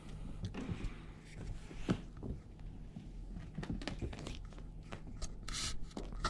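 Irregular soft thumps, scuffs and rustles of a kitten pouncing and tumbling on carpet while grappling a feather boa toy, with a brief hissing rustle near the end.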